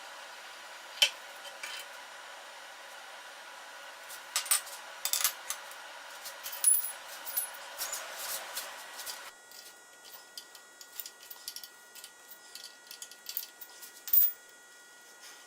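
Small metal parts being handled: scattered light metallic clinks and taps, busiest in the middle. A steady background hum cuts off suddenly a little past halfway.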